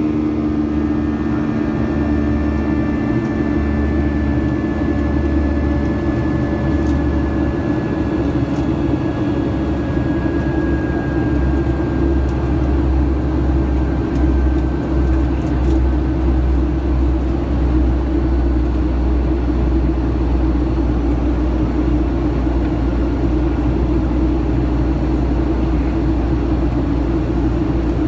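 Cabin noise of a Boeing 737-800 in flight: the steady roar of its CFM56 turbofan engines and the airflow, heard from a seat over the wing. A thin engine whine slowly falls in pitch over roughly the first fifteen seconds and fades into the roar.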